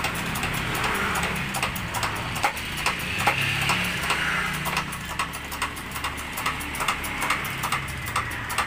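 Hydraulic bottle jack, laid on its side, being pumped by hand to press a scooter's bent rear frame: many sharp, irregular metallic clicks and knocks over a low steady hum.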